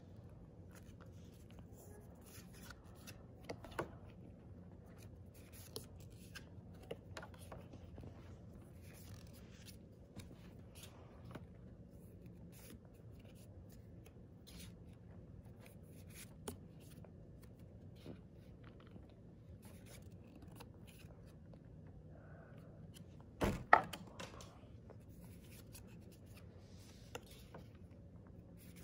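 Pokémon trading cards being handled and flipped through one by one: faint slides, rubs and small clicks of card stock. A sharp double knock stands out about three-quarters of the way through.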